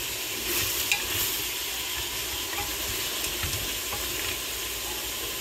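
Pieces of goat meat sizzling as they stir-fry in hot oil in a stainless steel pressure-cooker pot, being turned with a spatula, with a few faint light scrapes against the pot.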